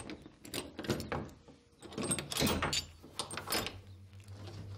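Irregular knocks and clatters of objects being handled, with low background music beginning near the end.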